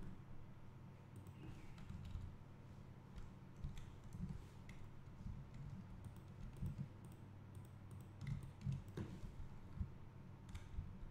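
Faint, scattered clicks of a computer mouse and keyboard, irregular and a few seconds apart, over a low steady hum.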